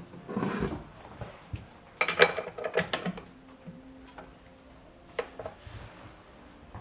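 Metal tools and parts being handled at the lathe: a brief rustle, then a burst of sharp, ringing metallic clinks about two seconds in, and a few lighter clicks later.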